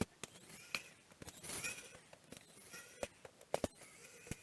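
Light scattered clicks and taps of a screwdriver and small plastic parts being handled, with a short soft rustle about a second and a half in.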